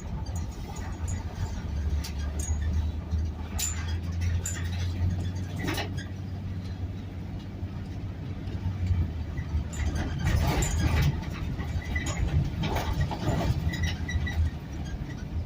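Motor vehicle running with a steady low engine and road rumble. Scattered sharp clicks and a few short rustling noises come through it, mostly in the second half.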